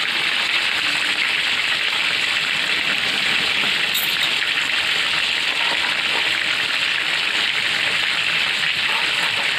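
Jengkol and chillies in sauce bubbling and sizzling in a wok, a steady hiss.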